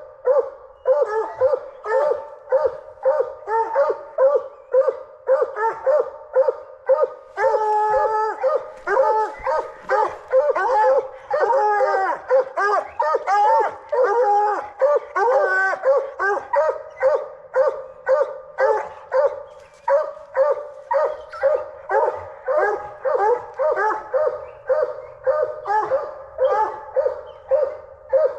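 Coonhounds barking treed: one hound's steady chop of about two barks a second, with a second hound joining in with overlapping barks that rise and fall for several seconds about a quarter of the way in.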